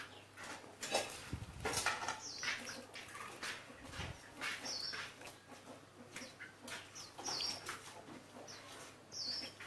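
A bird giving short, high chirps three times, a couple of seconds apart, over scattered clicks and rustling.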